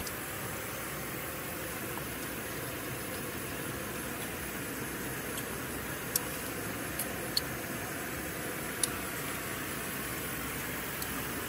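Steady, even hiss of outdoor background noise, with a few faint sharp clicks about halfway through.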